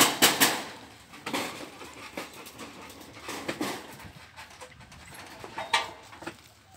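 A dog barking: a quick run of sharp barks at the start, then a few scattered barks, one louder near the end.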